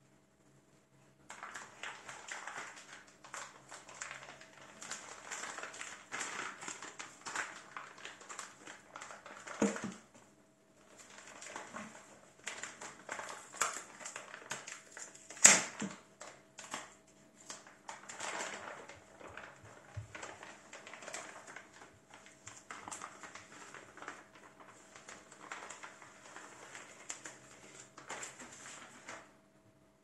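A motherboard's plastic anti-static bag crinkling and rustling as gloved hands open it and slide the board out, in uneven bursts that start about a second in and stop near the end, with one sharp crack about halfway through, the loudest sound.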